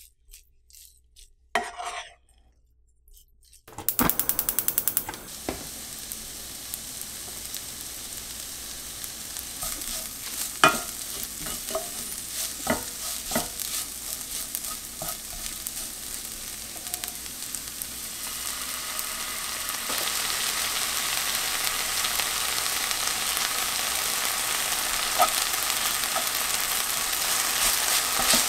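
Wooden spatula stirring and tapping kimchi fried rice in a nonstick frying pan, quiet at first. About four seconds in comes a quick run of clicks, then a steady sizzle of the rice frying, with occasional knocks of the spatula on the pan. The sizzle grows louder about twenty seconds in as soy sauce and sugar caramelize in the hot pan.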